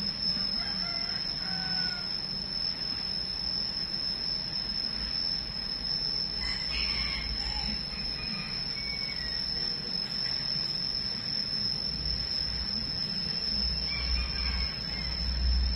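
A steady, high-pitched insect drone, one unbroken tone, with a few faint bird chirps about a second in, in the middle, and near the end.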